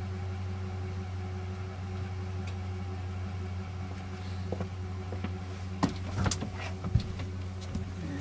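A car engine idling steadily, heard from inside a small camper, with its alternator charging the camper battery. A few short knocks and clicks come in the last two seconds or so.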